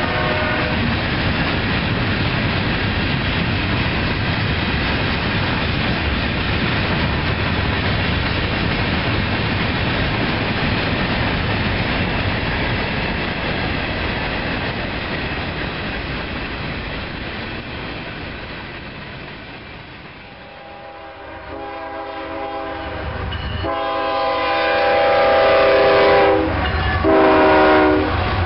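Freight cars rolling past with a steady wheel-on-rail rumble that fades away. Then a diesel locomotive's multi-note air horn sounds, growing louder as it approaches: two long blasts, a short one and another long one, the grade-crossing signal.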